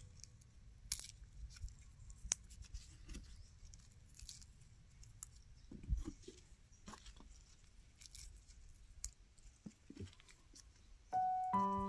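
Faint scattered clicks, taps and short rustles of small handling sounds, a few sharper clicks among them; background music with sustained notes comes back in near the end.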